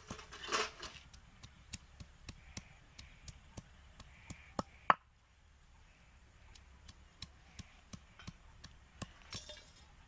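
Ginger and garlic being ground on a shil-nora, a stone slab worked with a stone roller: stone knocking on stone about three times a second as the roller is rocked, with a brief pause about five seconds in.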